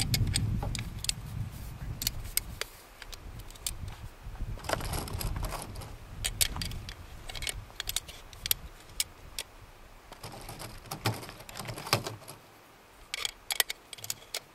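Irregular metallic clicks and rattles, some in small clusters, as .303 British cartridges are pushed one at a time into the Farquhar-Hill rifle's drum magazine and its catch switch is worked. A low rumble runs under the first few seconds.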